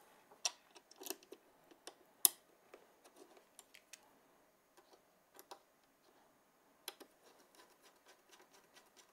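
Hand screwdriver and small screw being fitted into a mounting tab: scattered faint clicks and ticks, the loudest a sharp click about two seconds in.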